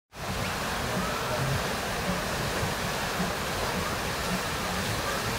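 Steady rushing of pumped water pouring over an artificial standing wave in a surf pool.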